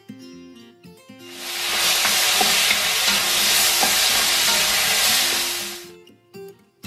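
Abalone and vegetables sizzling hard as they are stir-fried in a hot wok, with a few light spatula knocks. The sizzle comes in about a second in and stops shortly before the end, with soft plucked-guitar music heard before and after it.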